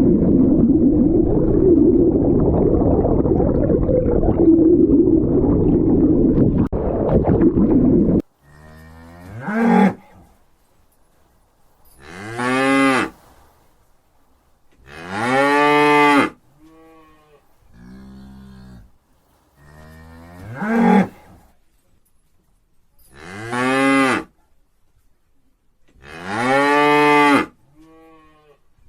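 A loud, dense, continuous noise for about the first eight seconds, then a cow mooing over and over: about six long, drawn-out moos, each rising and falling in pitch, with quieter, lower moos between some of them.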